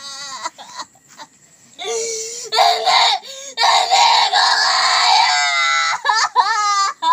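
A young woman crying and wailing in anguish, acted. Short sobbing cries come first. About two seconds in, a long, loud, high-pitched wail lasts some three seconds and trails off, followed by more short cries.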